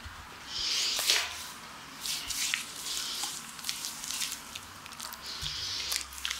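Hands kneading and rubbing foamy lather over bare skin. The wet squishing comes in uneven strokes, about one a second, with small sharp clicks from the lather.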